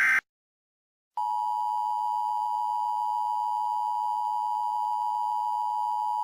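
Emergency weather alert broadcast for a tornado watch. A burst of the alert's digital data header cuts off at the start, and after about a second of silence the steady single-pitch alert tone begins and holds.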